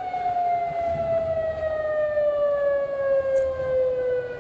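Outdoor civil-defence warning siren wailing, one steady tone with overtones sliding slowly down in pitch, sounding as a tsunami warning.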